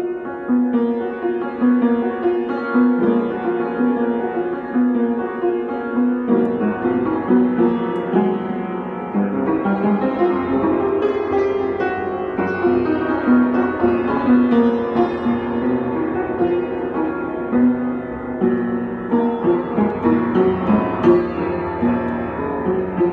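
Acoustic piano played solo: an improvised, slow tune of chords and melody notes sustaining into one another. Some notes are struck hard, with the loudest strikes near the end.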